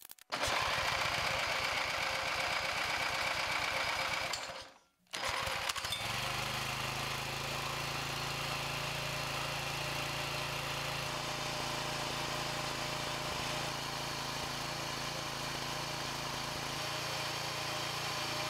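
6-horsepower Briggs & Stratton single-cylinder engine running steadily with its cylinder head patched over a through-cut using low-temperature aluminum brazing rod, the patch holding under heat and pressure. The sound drops out briefly about four and a half seconds in, then the engine runs on at an even speed.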